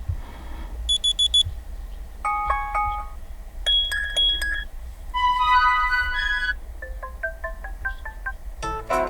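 Asus ROG Phone 6 alarm tones previewed one after another, about six short electronic melodies in turn, each cut off after about a second. They include four quick high beeps, a chime pattern, a rippling run of notes and a series of plucked notes.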